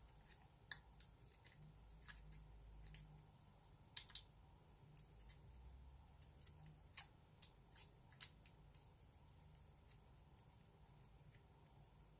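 Sharp, irregular clicks and taps of small hand tools and a shim working at a DOM IX10 dimple lock cylinder while it is being taken apart.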